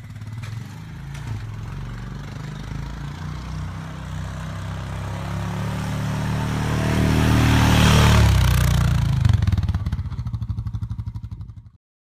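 Honda Foreman 450 ATV's single-cylinder engine under load, getting louder and peaking about eight seconds in with a rising hiss, then falling in pitch and level before cutting off abruptly near the end.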